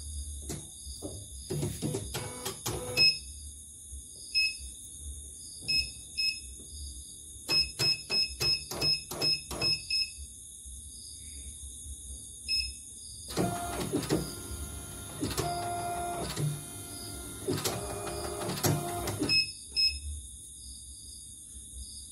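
Button beeps from a CNY computerized embroidery machine's control panel as it is keyed: single short beeps, then a quick run of about a dozen. About halfway through, the machine's embroidery unit motors whir for about five seconds, then stop, followed by more beeps.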